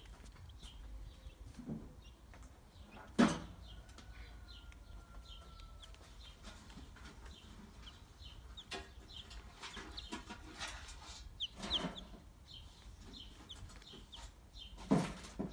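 Young chicks about ten days old peeping over and over in short, high, slightly falling calls, with three louder short sounds about 3, 12 and 15 seconds in.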